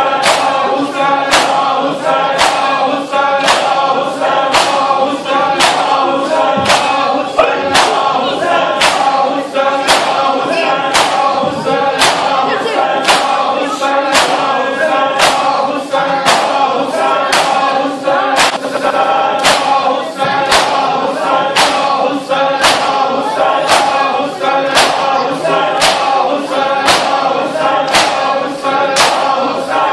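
A crowd of men chanting a noha together while beating their chests in unison (matam). The hand-on-chest slaps land in a steady beat, about three every two seconds.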